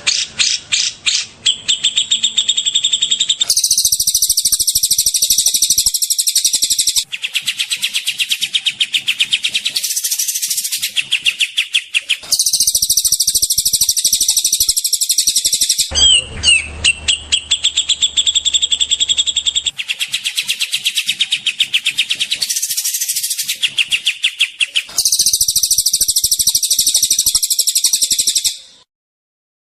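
Recorded songbird song made of fast, rattling trills of high repeated notes, the rapid-fire 'tembakan' phrases used to tutor caged songbirds. It comes in spliced segments that switch abruptly every few seconds and stops shortly before the end.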